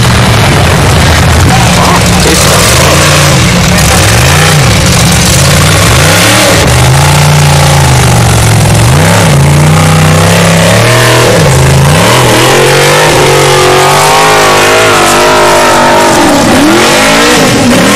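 Formula Offroad buggy engines revving hard as the cars climb a steep sand hill, the pitch rising and falling again and again as the throttle is worked. The engine note is higher-pitched in the last few seconds. The sound is loud throughout.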